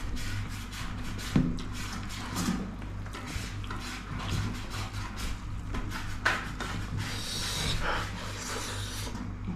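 Eating sounds: rice and curry being mixed and scooped on a plate and chewed, with scraping and small clicks throughout and a couple of sharper knocks. A steady low hum runs underneath.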